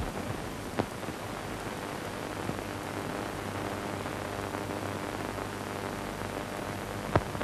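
Steady hiss and low hum of an old film soundtrack, with sharp clicks at the very start, about a second in and near the end.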